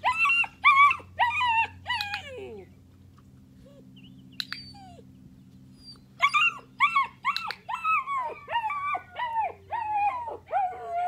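Eight-week-old puppy whining: a quick run of about five high cries, each falling in pitch, then a pause of about three seconds and a longer string of a dozen or so falling whines.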